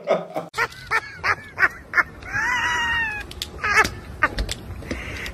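A series of short, high-pitched, meow-like cries. A longer cry rises and falls about two seconds in, and another follows a second later.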